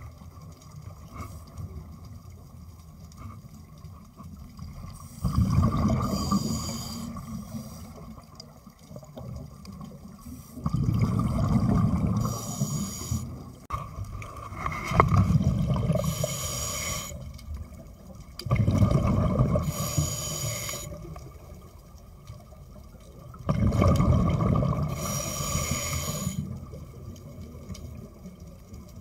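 A scuba diver breathing through a regulator underwater: five breaths, each a 2–3 second rush of exhaled bubbles, coming about every four to five seconds.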